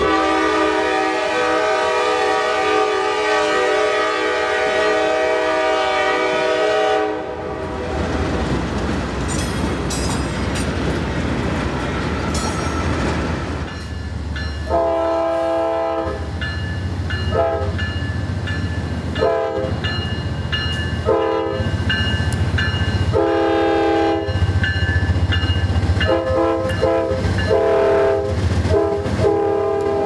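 Norfolk Southern diesel freight locomotive air horns: one long, chorded horn blast lasting about seven seconds, then, after a stretch of the train's low rumble rolling past, a second series of long and short horn blasts over the steady rumble of locomotives and freight cars on the rails.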